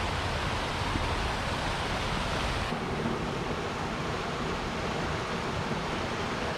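Steady rushing of a river tumbling over a series of small waterfalls, its hiss easing slightly a little under three seconds in.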